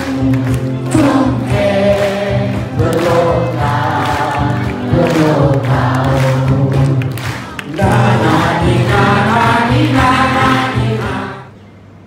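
A large group singing a Thai song together to acoustic guitar, with hand claps on the beat; the music cuts off suddenly near the end.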